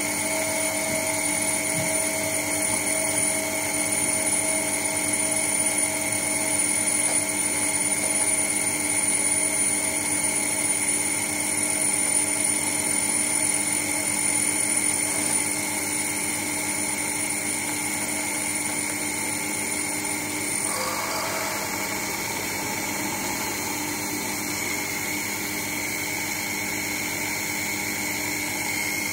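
Sherline lathe driven by a windshield wiper motor, running steadily with a constant whine while the tool cuts a copper-coloured rod. A thin high-pitched tone in the sound stops about two-thirds of the way through.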